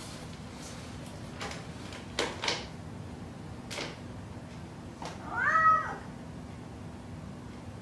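Domestic cat meowing once, a single call that rises and falls in pitch about five seconds in, after a few light clicks.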